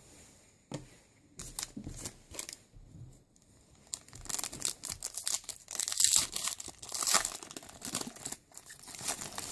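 A trading card pack wrapper being torn open and crinkled: a few sharp crackles at first, then denser, hissy tearing and crinkling from about four seconds in.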